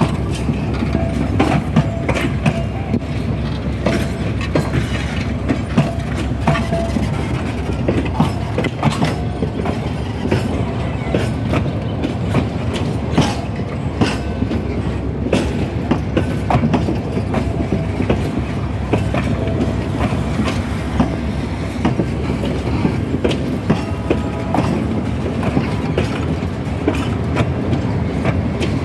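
Serra Verde Express passenger coaches rolling past, their steel wheels clattering over the rail joints in an irregular clickety-clack over a steady low rumble.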